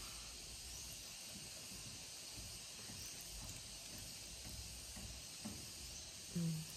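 Faint steady hiss of background noise, with a brief hummed voice sound near the end.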